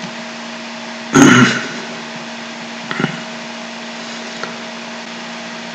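Steady low electrical hum and hiss of a desk microphone. A short, loud noisy sound comes about a second in, and a smaller one near three seconds.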